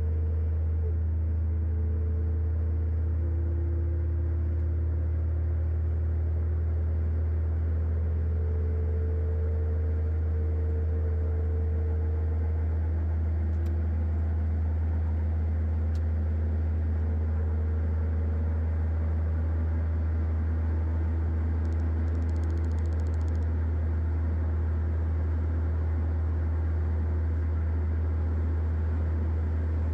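A loud, steady low test tone plays through the Toyota Tacoma's stereo at volume 10. Inside the cab, the truck's engine note slowly rises over the first dozen seconds as it accelerates onto the highway, with a steady hiss of road noise underneath.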